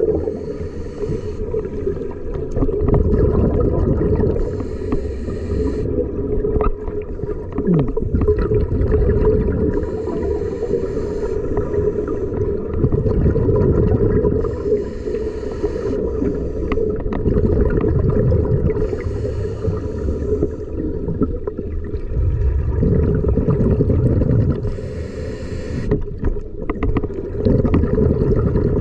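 Scuba diver breathing underwater through a regulator: a short hiss recurs about every four to six seconds, alternating with low rumbling bubble bursts, over a steady low hum.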